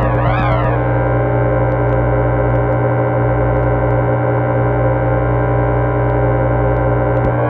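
Electronic music soundtrack: a warbling tone sweeping up and down about twice a second for the first second, then a steady, dense droning chord of many held tones.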